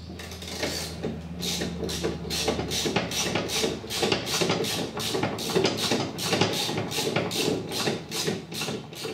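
Hand-tool work on a ride-on mower's cutter deck: a regular run of sharp metallic strokes, about three a second, with a low steady hum under the first few seconds.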